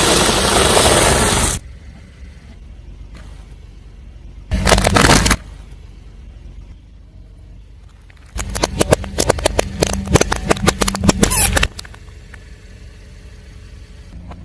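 Car tyre rolling over and crushing objects. There is a loud crunching noise in the first second and a half and a short burst around five seconds in. In the second half comes a run of sharp cracks and pops lasting about three seconds, with a low engine hum beneath.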